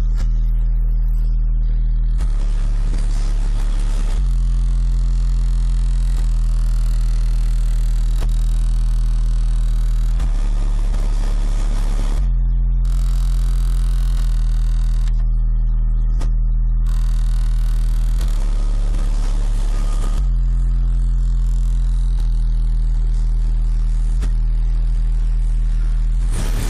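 Car audio system with a 15-inch subwoofer playing bass-heavy music loud, a deep sustained bass note underneath throughout. A noisier, fuller passage comes back about every eight seconds.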